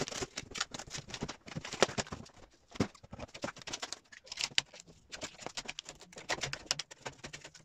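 Masking tape and a taped-on body plug being ripped and peeled off a car's front guard: a dense, irregular crackle of tearing tape and small snaps.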